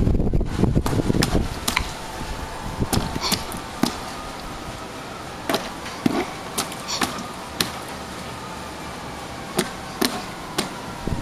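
A toddler's hand slapping and splashing the water in a plastic water table: about a dozen sharp, irregular splashes. Wind rumbles on the microphone at the start.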